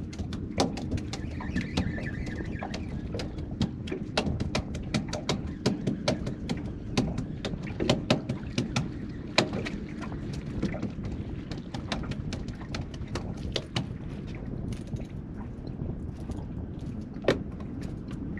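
Small waves lapping and slapping against the boat's hull in irregular sharp knocks, a few each second, over a steady low rumble of wind and water.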